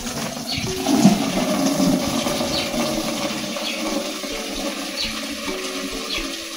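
Water running steadily from a tap into a container as it is filled, an even rushing sound.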